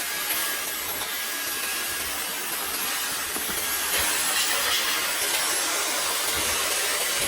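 Dyson cordless stick vacuum running steadily: an even rush of air with a thin high whine.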